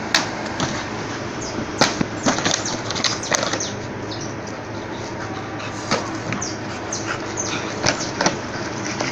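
A dog playing with an empty plastic bottle: irregular sharp clatters and crackles as the plastic is bitten and knocked about on dirt ground.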